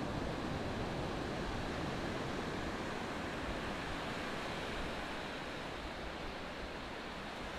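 Ocean surf: a steady rush of breaking and washing waves, easing slightly near the end.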